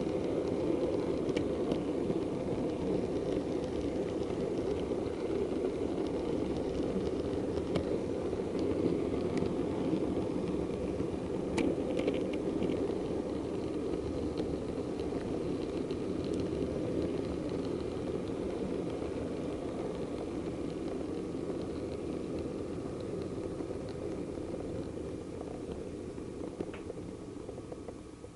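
Model diesel multiple unit running along the track, a steady rumble heard from a camera on board, with occasional sharp clicks. It grows quieter over the last few seconds and stops as the train comes to rest.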